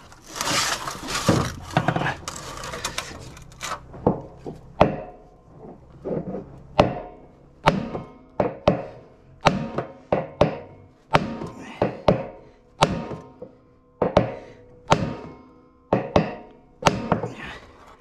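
Hammer blows on a drift held against a washing machine's drum shaft, about twenty sharp ringing metal strikes, one or two a second, starting a few seconds in after some handling noise. The shaft is stuck in the drum's worn rear bearing and is being knocked out.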